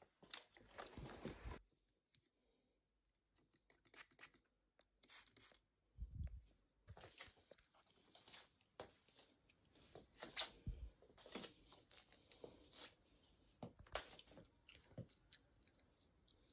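Faint, scattered rustles, clicks and handling noises close by, with a short hiss in the first second and a half.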